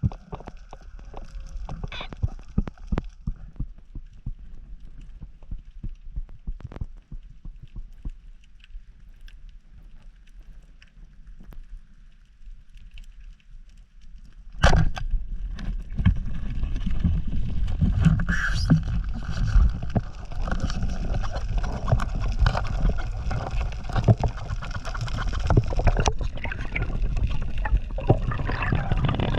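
Water around a freediver's head-mounted camera: quiet underwater with scattered clicks for the first half, then a sudden splash about halfway in, followed by loud continuous sloshing and gurgling water.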